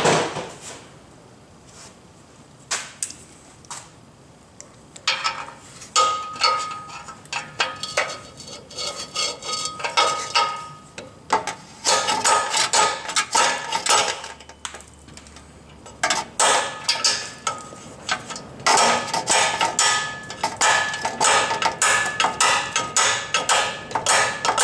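Hammer blows on a steel extractor socket, driving it onto a rusted, rounded-off exhaust nut. The strikes come in quick runs after a few quiet seconds, and each one has a short metallic ring.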